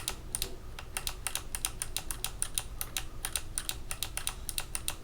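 Fast, uneven typing on a mechanical keyboard fitted with clicky Kailh BOX Jade switches, each keypress giving a sharp, crisp click at about seven keystrokes a second.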